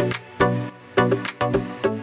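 Background music with a steady beat: pitched chords struck in a regular rhythm over a bass line.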